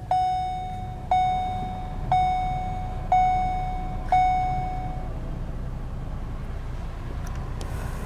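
Dashboard warning chime of a 2014 Ford Escape sounding five times, about once a second, each a clear ringing tone that fades, stopping about five seconds in. Under it the car's 2.0-litre EcoBoost four-cylinder idles with a low steady hum, just after push-button start.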